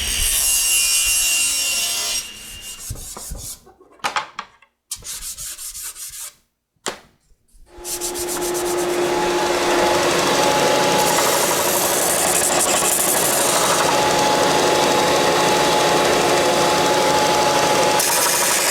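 Power saw cutting a board to width. The saw runs, drops away about two seconds in, and after several quiet seconds starts again and runs steadily with a constant hum.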